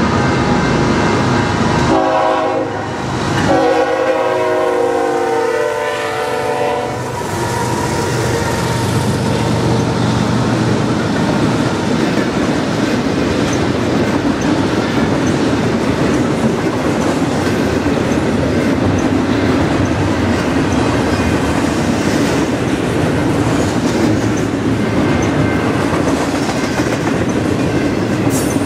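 Horn on a BNSF diesel freight locomotive sounding a short blast and then a long one, ending about seven seconds in. After that the double-stack container cars of an intermodal freight train roll past with steady wheel noise and clatter on the rails.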